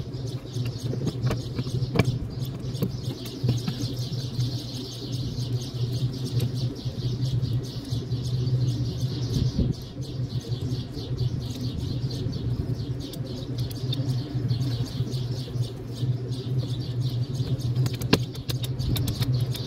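Birds chirping in the background over a steady low hum, with scattered small clicks and rattles as the golf cart's forward-and-reverse switch and its wire connectors are handled.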